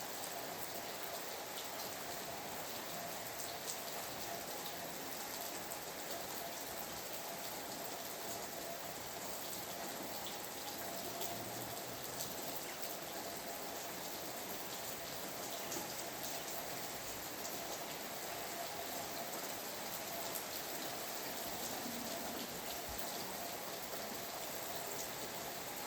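Steady rain falling, a constant hiss with many small, distinct drop hits.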